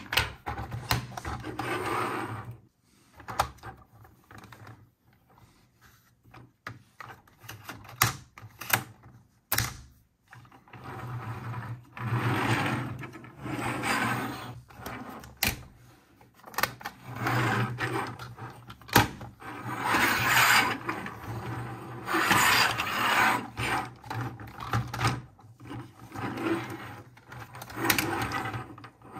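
Hard plastic toy playset being handled and unfolded: plastic panels rubbing and scraping against each other and the table in several long stretches, with sharp clicks and snaps in between.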